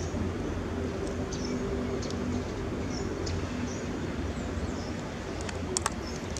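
Outdoor ambience: small birds chirping in short high notes over a steady low hum, with a couple of sharp clicks shortly before the end.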